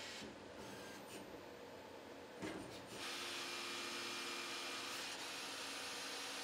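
Swiss-type CNC lathe at work: a quieter stretch of scraping machining noise with a sharp knock about two and a half seconds in, then from about three seconds a steadier, louder hiss with a low steady hum.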